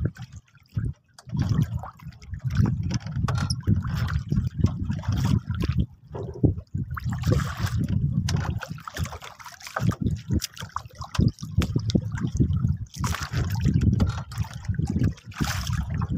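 Sea water lapping and splashing against the hull of a small wooden boat, with irregular louder splashes over a constant, fluctuating low rumble.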